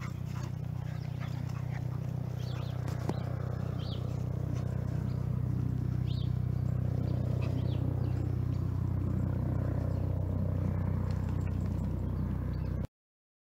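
Outdoor ambience: a steady low hum with a few short bird chirps above it. The sound cuts off suddenly near the end.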